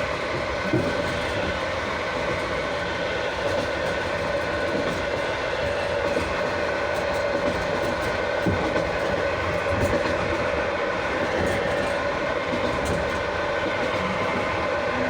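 Passenger car's wheels and brake shoes under continuous braking on a long downhill grade, heard from directly under the car through an open floor hole: a steady loud grinding rush with held ringing tones, and now and then a knock of the wheels over a rail joint.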